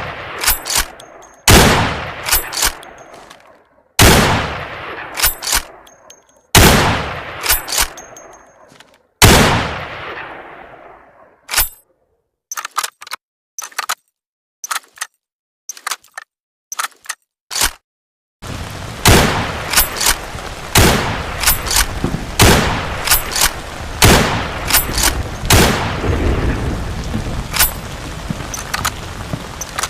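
Ross Mk III straight-pull .303 rifle fired over and over, each shot trailing off in a long echo with small metallic clicks between shots. First come about five shots roughly two and a half seconds apart, then several seconds of clicks alone, then from about two-thirds of the way through a quicker run of shots over a steady background noise.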